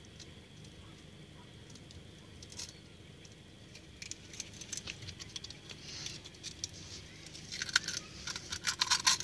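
A raw egg being broken open and its shell picked apart by hand over a glass: scattered faint clicks, then a quick run of sharp cracking clicks near the end.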